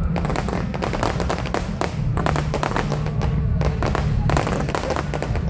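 Fireworks crackling: dense, rapid runs of many small sharp pops in clusters, with a steady low rumble underneath.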